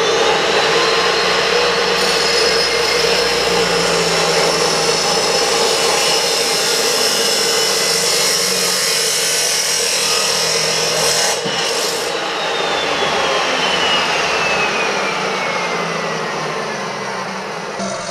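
A Porter-Cable 15-amp chop saw spinning up and grinding through a thin steel exhaust pipe: a loud, steady whine over a gritty cutting noise. About two-thirds of the way through, the whine's pitch starts falling steadily as the motor winds down.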